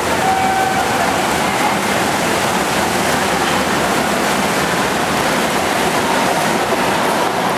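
Swimmers splashing through a freestyle race, a steady rushing noise echoing in an indoor pool hall.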